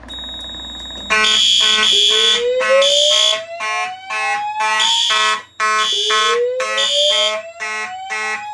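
Fire alarm notification appliances sounding together: a voice-evacuation speaker's slow whoop rising twice, each sweep about three and a half seconds long, over horns pulsing on and off about twice a second. The alarm comes in loudly about a second in, after a faint steady high tone.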